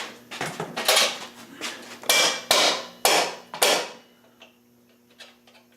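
Old rawhide soft-faced hammer tapping a mini bike fender up into place: about half a dozen blows in the first four seconds, then they stop once the fender is lined up.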